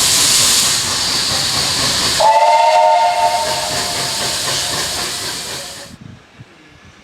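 Loud steam hiss from a South African Garratt steam locomotive. About two seconds in, its steam whistle sounds several notes at once and then fades, while the hiss goes on. Near the end the hiss cuts off abruptly.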